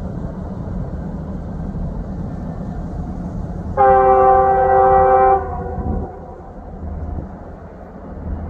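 Approaching train rumbling, with one blast of the locomotive horn about four seconds in that holds for about a second and a half, its chord of several tones cutting off and echoing briefly.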